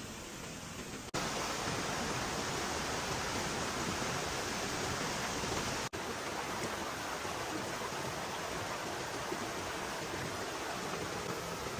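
Steady rushing noise with no distinct events, broken by two abrupt cuts, about a second in and about six seconds in, each changing the level slightly.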